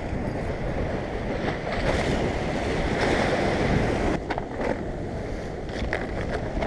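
Wind blowing across the microphone over waves washing against the shore, with a few faint clicks about four seconds in and again near the end.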